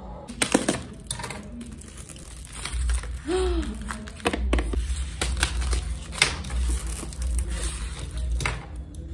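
Polystyrene foam packaging being cut and pried apart by hand, with irregular crackling, creaking and rubbing of the foam, plastic wrap crinkling and the knocks of handling. A short foam squeak about three seconds in.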